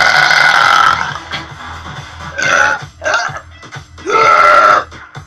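A young woman burping loudly several times: a long burp ending about a second in, a few short ones, then another long burp near the end, over background music with a steady beat.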